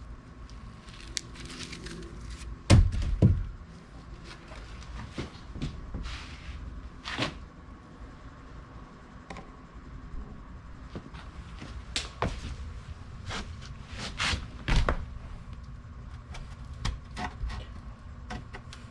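Irregular knocks and thunks as parts of a fibreglass boat hull are handled and worked on, a few louder than the rest, over a faint steady hum.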